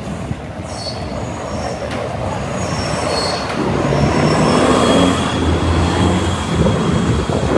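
Cars passing on a town street, with an engine growing louder from about halfway through as a vehicle goes by. Short high squeals sound in the first half.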